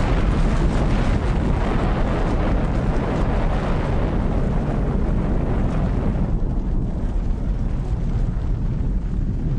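Continuous rumble of an atomic bomb blast, the documentary soundtrack's explosion sound for the Nagasaki mushroom cloud. The hissing upper part dies away about six seconds in, leaving a deep rumble.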